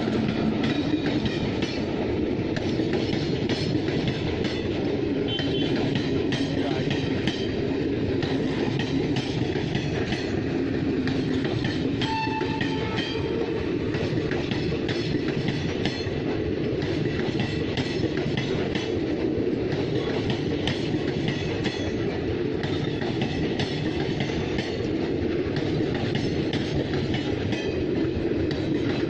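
Wheels of a passing express train hauled by a WAP-5 electric locomotive rattle steadily over the rail joints and points as it changes lines, with a continuous dense clickety-clack.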